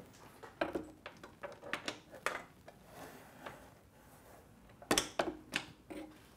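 Light metal clicks and taps of a bolt and washer being fitted by hand into a motorcycle frame's shock mount, with a sharper cluster of about three clicks about five seconds in.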